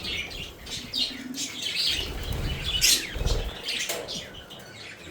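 A colony of budgerigars chirping, many short overlapping chirps, with a low rustle and a sharp click around the middle.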